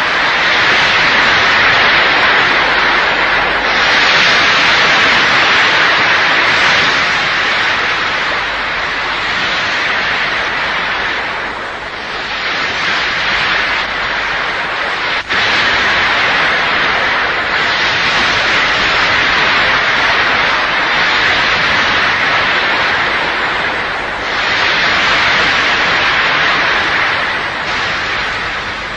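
Rushing, breaking sea water: a loud, steady hiss that swells and eases every few seconds, with a brief cut-out about fifteen seconds in.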